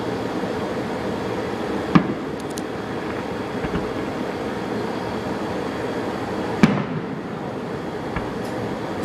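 Fireworks shells bursting: two sharp bangs, one about two seconds in and a louder one near seven seconds, over a steady background rumble.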